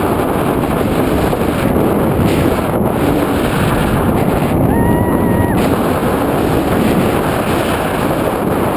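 Wind rushing over the camera microphone during a tandem parachute descent under an open canopy: a steady, loud rushing noise. A short steady tone lasting about a second sounds about halfway through.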